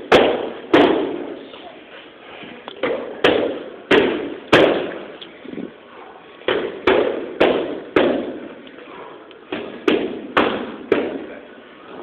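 Boxing gloves punching focus mitts: sharp smacks in quick combinations of two to four, about fourteen in all, each echoing briefly.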